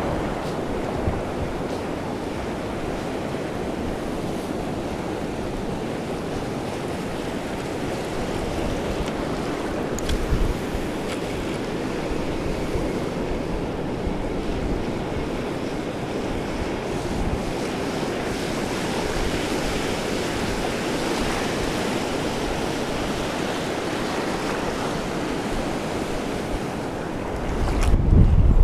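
Ocean surf breaking and washing, a steady rush of water. Near the end a low rumble of wind on the microphone comes up.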